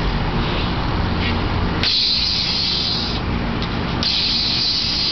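Toy lightsabers' electronic sound effects: a steady low hum with two sudden stretches of loud hissing crackle, the second starting as the blades clash about four seconds in.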